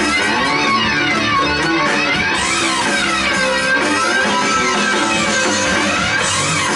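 Live instrumental rock trio of electric guitar, bass guitar and drums playing, the guitar's tone sweeping up and down in pitch about every two seconds.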